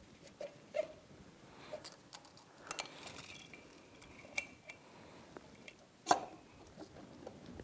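Faint metallic clicks and light knocks of an aluminium cylinder being worked down over a piston by hand, with the cam chain and a magnet pick-up tool clinking against it. One sharper click comes about six seconds in.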